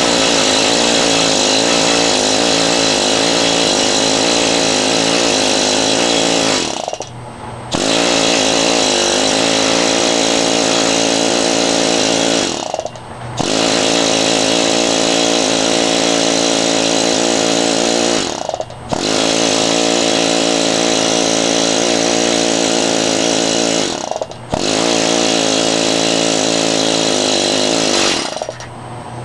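Planishing hammer running in five long bursts of about six seconds each with short pauses between, its rapid hammering cracking the insulation off a length of 12-gauge solid copper wire fed through the dies.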